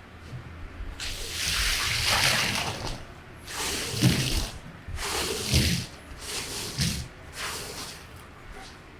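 Water splashing and sloshing in uneven surges, with a few dull knocks.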